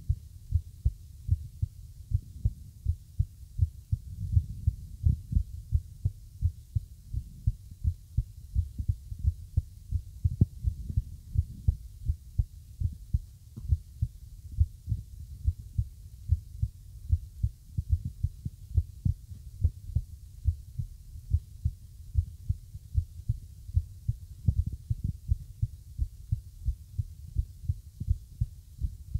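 Heartbeat: low, dull thumps repeating about twice a second, uneven in strength, over a faint low hum, in a rhythm the uploader calls irregular.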